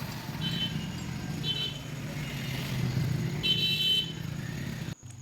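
Pressure washer running steadily while the tractor gearbox parts are washed, a low motor hum under a hiss of spray. Three short high-pitched toots come over it, the last one longest, and the sound cuts off abruptly near the end.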